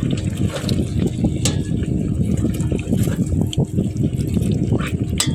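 Tofu cubes in oil bubbling in a pan while being stirred, with a few sharp clicks of the utensil against the pan.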